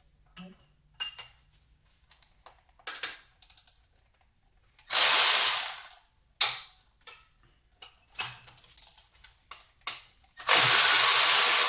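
Ratchet wrench working bolts loose on an engine: two fast runs of ratcheting clicks about a second each, around five seconds in and near the end, with scattered clicks and clinks of the socket and tools between.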